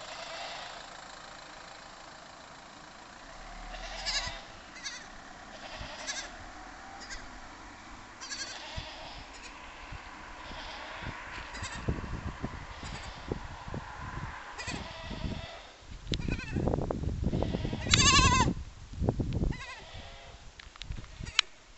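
Goat kid bleating over and over, high-pitched calls every second or two with the loudest about 18 seconds in: a kid separated from its herd. A low rumbling noise runs under the calls in the second half.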